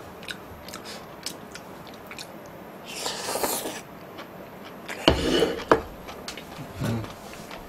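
Close-miked eating of yusanseul, a saucy stir-fry of shredded seafood, pork and vegetables: soft chewing, a slurp about three seconds in, and a few sharp knocks about five seconds in as the bowl is set down on the table.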